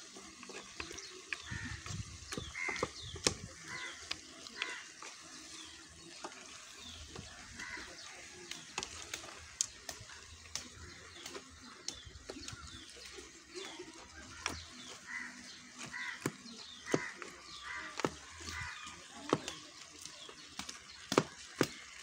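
Wooden spoon stirring chunky beef stew in an aluminium pot, with many sharp knocks and scrapes against the pot. Short animal calls come and go in the background.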